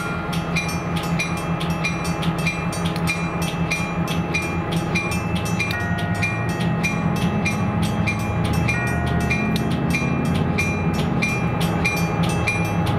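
Diesel locomotive's bell ringing at about two strokes a second over the steady running of its engine. The engine note rises about halfway through as the train gets ready to pull out.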